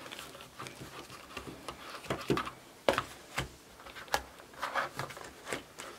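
Handling noise from kit parts and their packaging: a piece being worked back into its place, making a handful of light, scattered clicks and taps.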